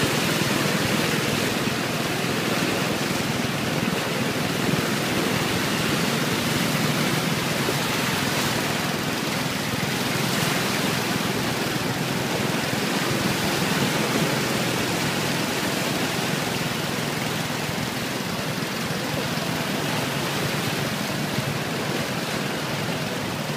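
Steady rush of flood water churned and sprayed up by motorbike wheels riding through a flooded street, with the sound of the motorbikes' traffic mixed in.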